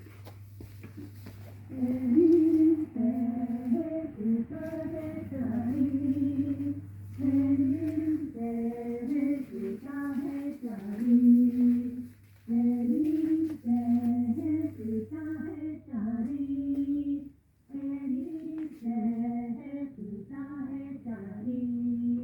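A high voice singing a melody in short, stepping notes, over a low steady hum for the first several seconds.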